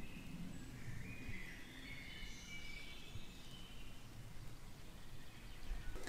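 Songbirds chirping and singing faintly in dense trees and bushes, in short warbling phrases over faint outdoor background noise.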